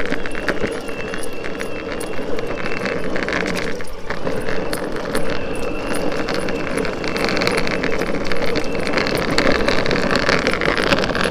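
Boosted Board electric skateboard rolling over rough asphalt: a steady wheel rumble, with a thin high whine from its belt-drive motors that holds for a couple of seconds about a second in and comes back for several seconds from about the middle.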